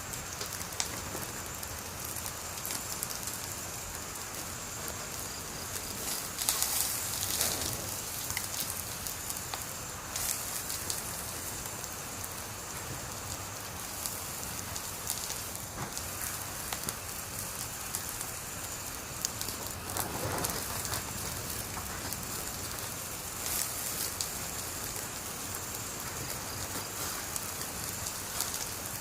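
Wood fire burning: a steady hiss with scattered crackles and pops, with a few louder spells of crackling about six seconds in and again around twenty seconds in.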